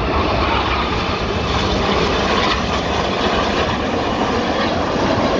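Steady, continuous jet noise from a formation of BAE Hawk T1A jets, each powered by a single Adour turbofan engine, flying past in the sky.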